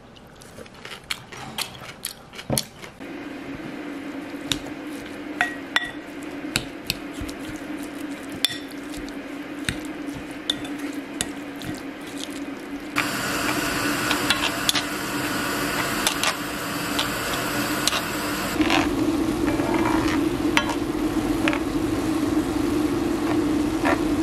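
A wooden spoon mixes seasoned ground beef in a glass bowl, with scattered clinks against the glass. About halfway through, ground beef sizzles in a stainless steel frying pan as it is stirred. A steady low hum runs under both.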